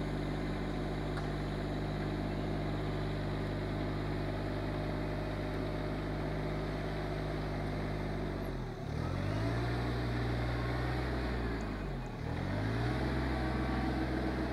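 Rural King RK24 subcompact tractor's diesel engine running steadily under working throttle. Its pitch dips and recovers twice, about nine and twelve seconds in, as the tractor works its loader bucket at a log pile.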